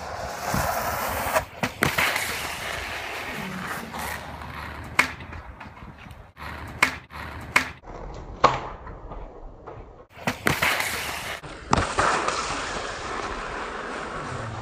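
Longboard wheels sliding and rolling on asphalt, then a string of sharp clacks and scrapes as the rider and board slam onto the road and the board tumbles away: a highside crash.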